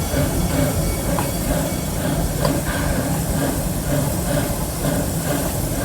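Steam-hauled park train running along the track, heard from aboard: a steady rumble of wheels on rail, with a few light clicks.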